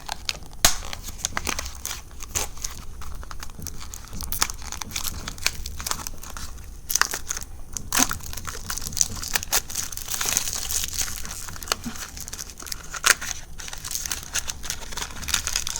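Crinkling, rustling and tearing of Shopkins Season 4 blind packaging being opened by hand, in many irregular crackles and short rustles.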